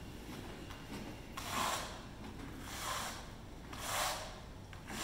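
Notched steel trowel scraping adhesive across the back of an embossed aluminum diamond plate panel, in three long spreading strokes about a second apart.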